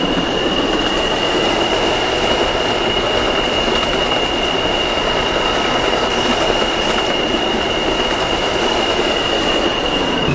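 New York subway train running between stations, heard from inside the car: a steady rumble of wheels on track with a flat, high-pitched squeal held throughout.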